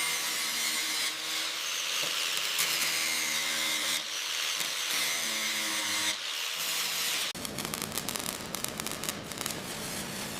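A power tool running with a steady hiss and faint shifting pitch; about seven seconds in it cuts abruptly to a crackling, clicking hiss.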